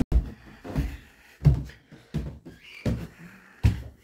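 A series of dull, short thumps, about one every three-quarters of a second.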